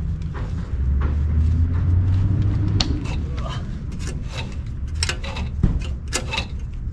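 An old tie-down strap being worked loose from a jet ski's trailer mount: a string of sharp clicks, knocks and rattles of the strap's metal hardware, from about three seconds in, over a steady low rumble.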